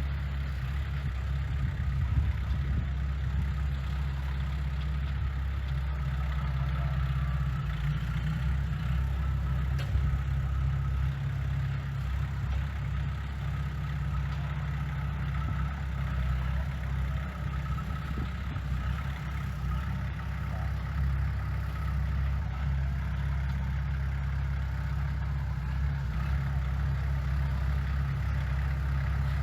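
Diesel engine of heavy construction machinery running steadily, with a deep, even low-pitched drone.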